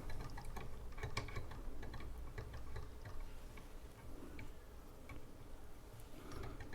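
Faint, irregular small clicks and taps of hands handling the newly fitted aluminium extruder on a 3D printer, busiest in the first few seconds and thinning out after.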